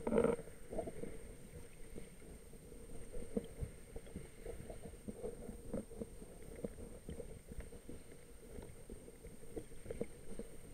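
Muffled underwater noise picked up by a camera moving through the water: a knock right at the start, then scattered small clicks and knocks over a faint steady hum.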